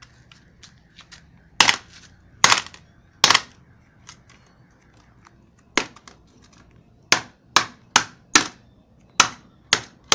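About ten hard, sharp blows striking a cell phone: three spaced roughly a second apart, a pause, then a quicker run of blows in the second half.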